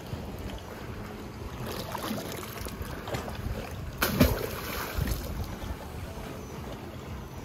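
A person jumping feet-first off a jet ski into the sea: a loud splash about four seconds in, with a smaller splash just after, over a low steady rumble of boat and water noise.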